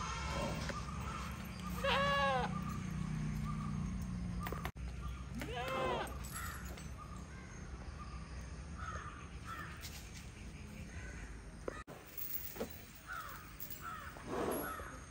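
Short animal calls, each rising then falling in pitch: two clear ones about four seconds apart, and a lower, weaker one near the end.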